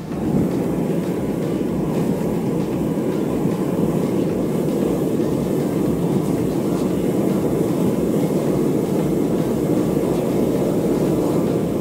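Gas burner firing into a metal-melting furnace: a loud, steady rumbling rush of flame that comes in suddenly and holds even.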